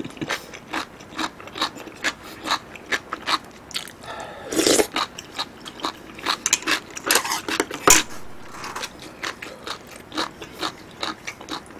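Close-miked chewing of beef-and-mushroom hotpot with noodles: many small wet mouth clicks, with a longer, louder slurp about four and a half seconds in and a single sharp knock near eight seconds.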